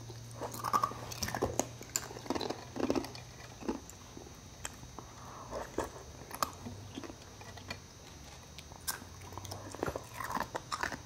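Ice being chewed and crunched close to the microphone: irregular crisp crunches and bites, busiest in the first few seconds and again near the end.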